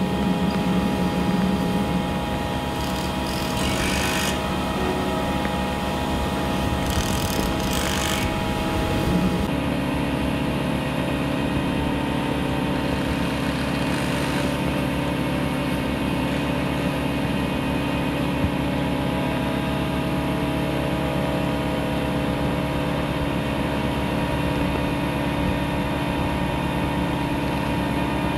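Kubota excavator's diesel engine running steadily, with two short bursts of hiss in the first ten seconds. About ten seconds in, the sound changes to a lower, steady engine drone.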